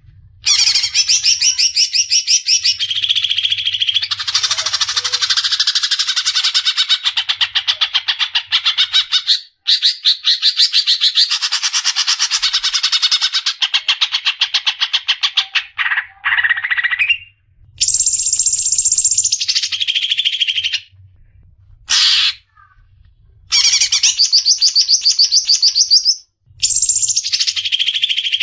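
Male green leafbird (cucak ijo) in full chattering song: long runs of fast, trilling repeated notes, each run ending in a short pause before the next one starts.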